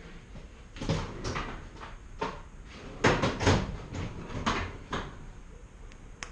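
A series of irregular knocks and clunks from tools and parts being handled, about eight in all, the loudest pair about three seconds in.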